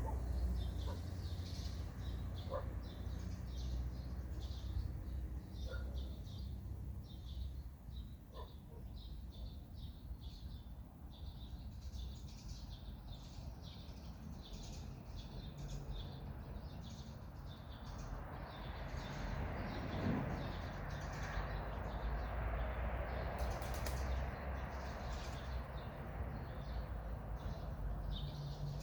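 Forest birdsong: many small birds chirping and twittering in quick, high notes, with a few lower single calls in the first few seconds. A low steady rumble runs underneath, and a soft rushing noise swells up in the second half.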